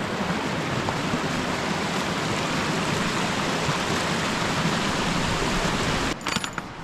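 Rushing stream water, a steady loud rush that stops abruptly about six seconds in, followed by a few short clicks.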